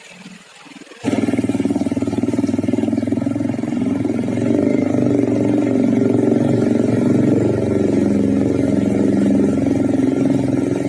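A motor vehicle's engine running steadily. It starts abruptly about a second in.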